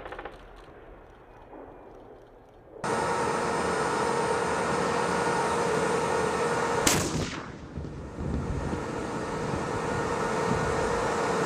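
M1 Abrams tanks running, their gas turbine engines giving a steady jet-like whine. One sharp cannon blast about seven seconds in, from a tank main gun firing. At the very start, a machine-gun burst trails away into quiet.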